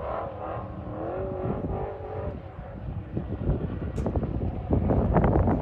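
A vehicle engine running, its pitch wavering up and down, with wind buffeting the microphone loudly near the end.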